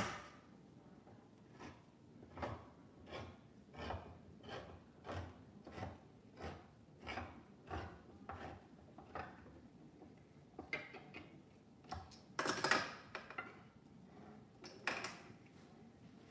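Hand-crank can opener cutting around a can of tomatoes, each turn of the key giving a short click, about one and a half a second, steady for around ten seconds. Near the end a louder rasping scrape as the cut lid is worked off the can.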